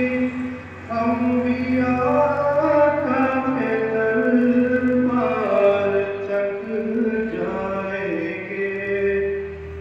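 Harmonica playing a slow naat melody in held notes and chords, each note lasting about a second, with a brief drop in volume about half a second in.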